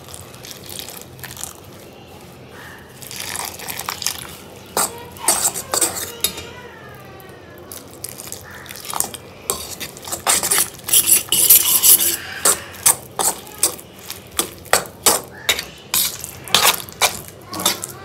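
Kitchen utensils clinking and knocking against pots and dishes, with a denser clatter partway through and a run of regular knocks, about two a second, near the end.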